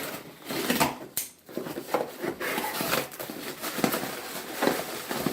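Packaging being opened and handled by hand: rustling and crinkling with many short clicks and snaps throughout.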